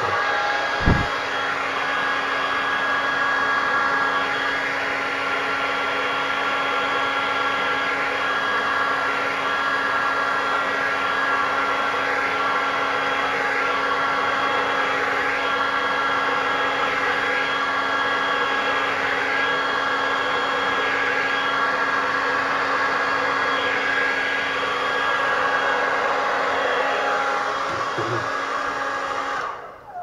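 Handheld hair dryer running steadily, a loud rush of air with a constant motor whine, as it blows thinned acrylic paint across a canvas. A short knock comes about a second in, and the dryer switches off near the end.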